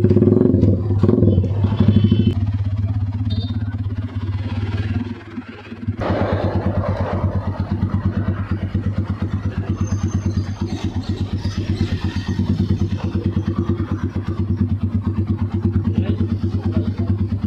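Yamaha SZ single-cylinder motorcycle engine, fitted with an aftermarket slip-on exhaust, idling while its carburettor idle and mixture are being fine-tuned. About five seconds in the idle sags almost away, then picks up sharply and settles into an even, steady idle.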